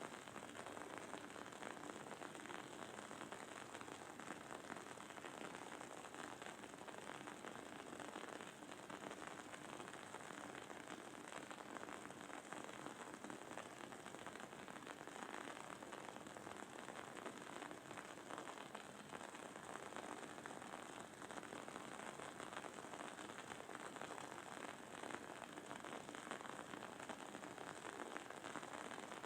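Wooden wick of a candle burning with a faint, steady crackle and sizzle, a dense stream of tiny pops.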